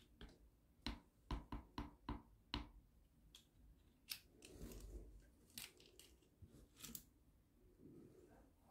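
Faint clicks and taps of a plastic spoon against the side of a plastic cup while thick glycerine goo is stirred: a quick run of about six light taps in the first few seconds, then a few scattered clicks.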